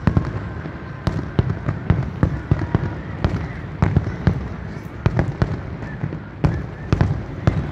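Aerial fireworks shells bursting: a rapid, irregular series of sharp bangs, two or three a second, over a steady low rumble.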